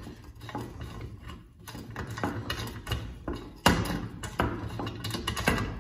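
Hand rivet-nut tool ticking and clicking as its knurled wheel is turned to unscrew the threaded mandrel from a freshly set threaded rivet nut in sheet metal. One sharper, louder clack comes a little past halfway.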